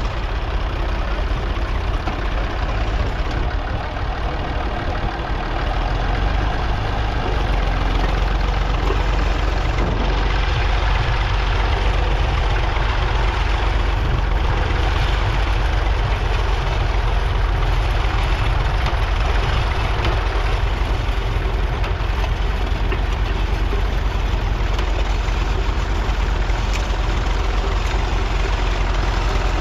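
Massey Ferguson 35X tractor's 2.5-litre three-cylinder diesel engine running steadily, a little louder from about seven seconds in.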